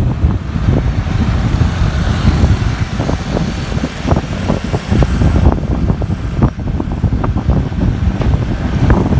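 Wind buffeting the microphone of a moving motorcycle: a loud, rumbling roar with frequent sudden gusty thumps, and road and vehicle noise underneath.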